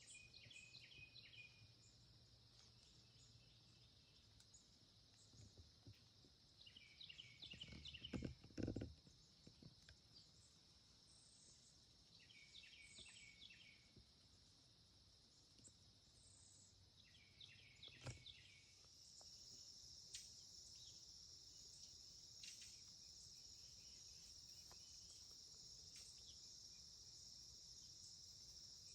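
Faint outdoor ambience of a steady cricket and insect chorus, growing louder about two-thirds of the way in, with short bursts of chirps repeating every five seconds or so. A few low bumps sound around the middle.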